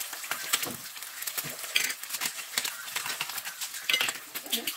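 Eggs frying in oil in a pan, a steady sizzle, with many small clicks and taps as salt is shaken and pepper is ground over them, and two brief louder sounds about two and four seconds in.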